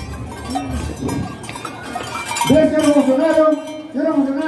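A man's voice through a microphone and loudspeaker, drawn out in long held tones, loudest from about two and a half seconds in and breaking briefly near the end. Beneath it are crowd noise and metallic clinking.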